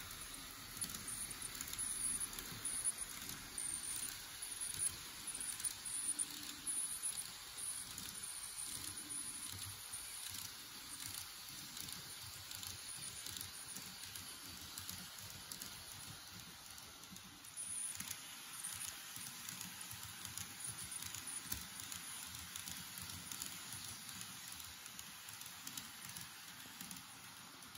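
Model train, a Romancecar 50000 VSE, running on model track: a dense, continuous patter of small clicks and rattles from its wheels over the track. Loudest in the first few seconds, then gradually softer.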